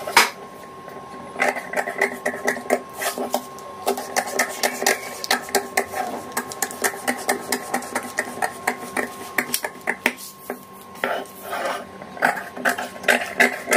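Long-bladed scissors snipping through newspaper in a quick run of short cuts, about three snips a second, the paper crackling a little with each stroke.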